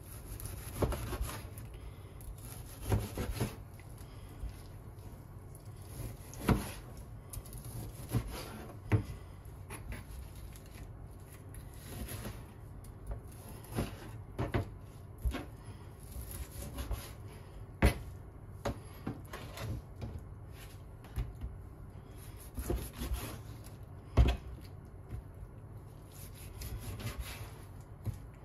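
Kitchen knife cutting raw chicken thigh into pieces on a plastic cutting board. The blade knocks on the board at irregular intervals, between soft rubbing as the meat is pressed and moved by hand.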